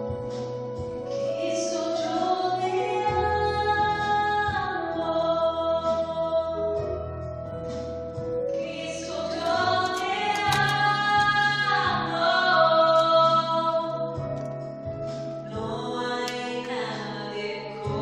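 A woman singing a slow melody with long held, gliding notes over a backing track, amplified through the hall's PA loudspeakers during a sound check.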